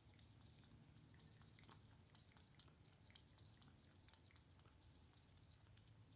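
Tabby kitten lapping milk and chewing milk-soaked food from a plate: a faint, quick run of small wet clicks.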